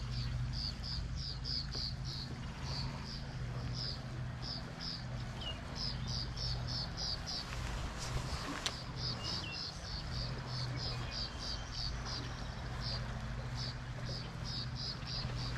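A small animal chirping: a fast series of short high chirps, about four a second, broken by brief pauses, over a steady low hum. A single sharp knock sounds about halfway through.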